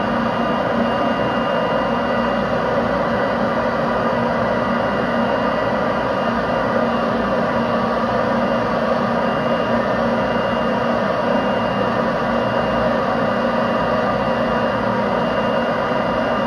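Ryobi leaf blower running steadily at full power, forcing air through the dryer vent duct and out of the outside vent opening, a constant rushing blast with a steady whine.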